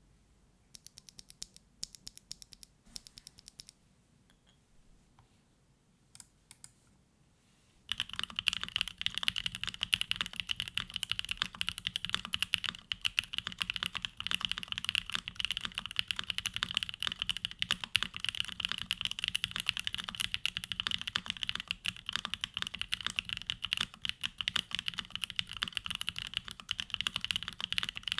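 Typing on a QK65 V2 gasket-mounted keyboard with a carbon fibre plate, hand-lubed WS Aurora Polaris linear switches and GMK Bento keycaps. For about the first eight seconds there are only a few scattered, quiet keypresses. After that, fast continuous typing runs on, much louder.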